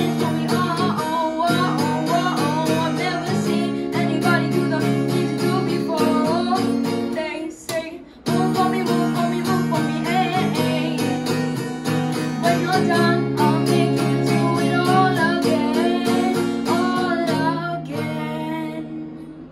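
Acoustic guitar strummed in a steady rhythm while a boy sings the melody over it. The playing drops out briefly about eight seconds in, then resumes, and the level falls near the end.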